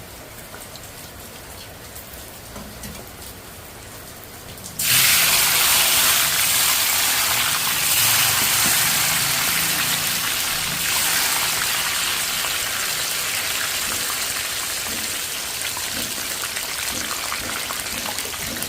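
Sizzling in a hot pan: a soft hiss, then about five seconds in a sudden loud sizzle as food or liquid goes into the hot oil, easing off slowly but staying loud.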